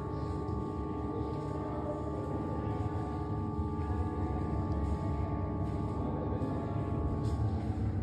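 A steady drone of several ringing tones held together, gong-like, fading out near the end, over a low rumble.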